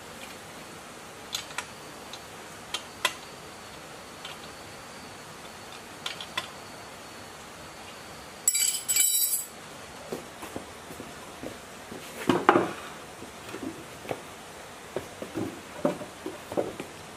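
Metal parts clinking and knocking against the cast-iron block of a ZS1115 diesel engine during reassembly: scattered light clinks, a short harsh scrape about halfway through, then a louder run of knocks and shuffling as the block is handled near the end.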